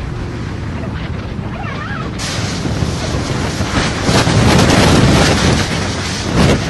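Strong tornado wind blasting across the microphone as a dense rushing noise. It grows harsher about two seconds in and is loudest a couple of seconds later.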